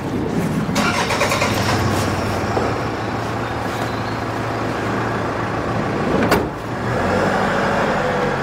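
A motor vehicle running steadily, with a sharp click or knock about six seconds in.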